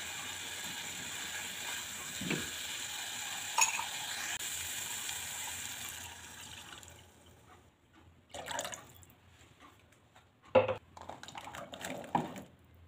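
Spice paste frying in oil in a saucepan, a steady sizzle with a couple of sharp spatula knocks against the pan. Water poured in about halfway quenches the frying and the sizzle dies away. Then come scattered clatters of a bowl and utensils against the pan, one loud, as cut long beans are tipped in.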